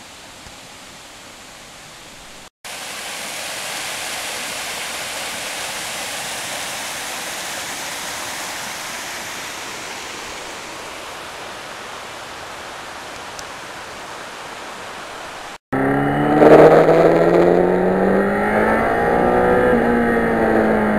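A creek running over rocks makes a steady rushing hiss. About three-quarters of the way through, a cut brings in a 1991 Yamaha FZR1000's inline-four engine running under way, its pitch rising and falling with the throttle and gears.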